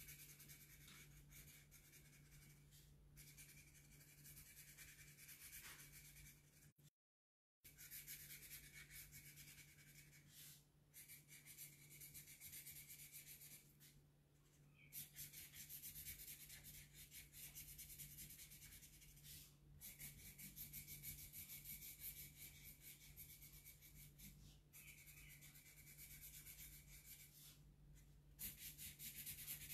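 Faint scratching of a marker colouring in on paper, in stretches of a few seconds broken by short pauses, over a steady low hum.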